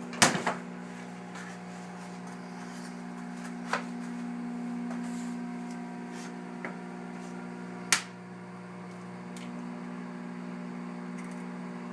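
Microwave oven running with a steady low hum. A few sharp taps come over it, the loudest near the start and about eight seconds in.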